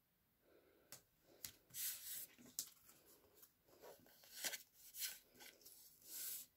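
Hands pressing and rubbing strips of tape down onto card, a run of short papery rustles and scrapes starting about a second in.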